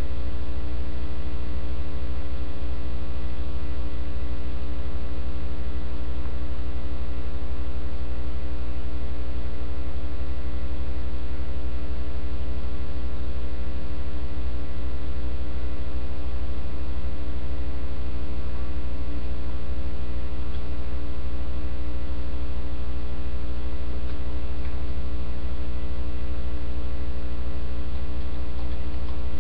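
Steady electrical mains hum with a buzzy stack of overtones, loud and unchanging throughout.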